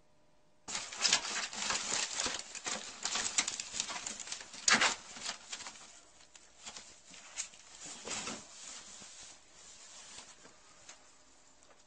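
Crinkling and rustling of a white plastic bag as a ferret drags and burrows into it. The dense crackling starts abruptly a little under a second in, is loudest in the first half, and thins out toward the end.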